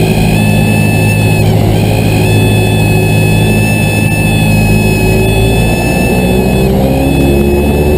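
Cessna 172's engine and propeller running loud and steady, heard from inside the cabin during a touch-and-go on the runway, with a steady high whine over it.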